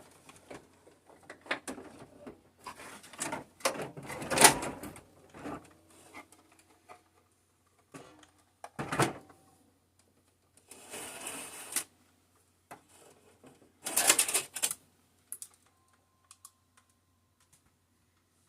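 Irregular clicks, taps and knocks of small hard plastic parts being handled, with a short stretch of rustling scraping. This fits work on a 1:6 scale RC Hummer H2 body and chassis.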